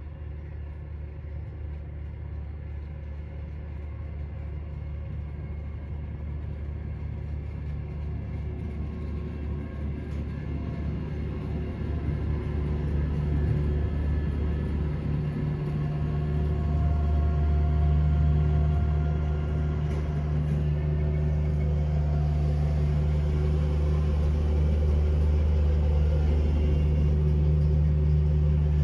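Engine of a machine clearing snow off a driveway, running steadily with a low hum. It grows gradually louder and steps up in level about halfway through.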